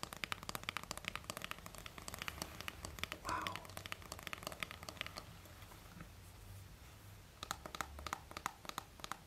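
Fingernails tapping, clicking and scratching on an iPhone 13 and its case in quick irregular runs. They thin out for a couple of seconds past the middle, then pick up again.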